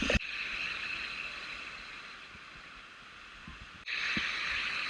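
Steady rushing hiss of a waterfall's falling water and spray up close. It breaks off for an instant just before the end and comes back louder.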